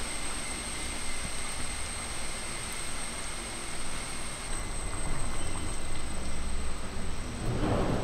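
Steady hiss of a prawn curry simmering in a clay pot over a wood fire, with a thin, steady high whine. Near the end a louder swell as a ladle goes into the curry.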